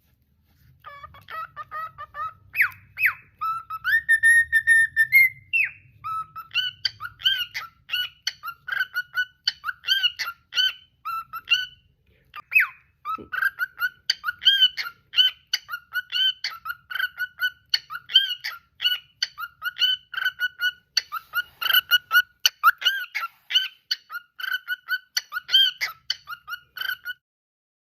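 Pet cockatiel whistling its song: a held whistled note that rises at its end, then a long run of quick, repeated chirpy whistled notes, several a second.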